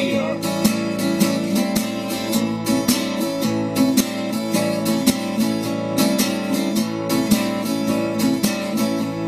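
Instrumental break in a folk-rock song: acoustic guitar strummed in a steady rhythm, with no singing.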